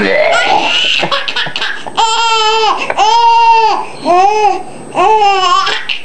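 A seven-month-old baby laughing. A rough, breathy stretch comes first, then four long, high-pitched laughs about a second apart.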